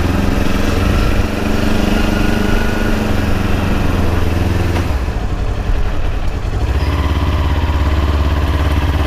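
Kawasaki Ninja 250R's parallel-twin engine running as the bike rides slowly along. Its note dips and changes about five seconds in, then settles into a steady drone again.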